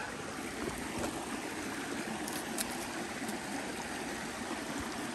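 A small stream flowing steadily over rocks: an even, unbroken rush of water.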